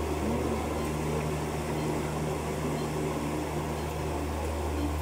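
Steady low electrical hum, with a faint voice briefly near the start.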